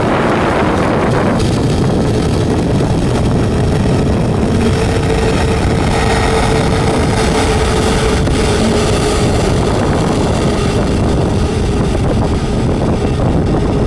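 Jet engine noise from a landing Airbus A321neo's CFM LEAP-1A turbofans: a steady rush with a faint tone that slowly sinks in pitch, the hiss easing a little about a second in. Heavy wind buffets the microphone.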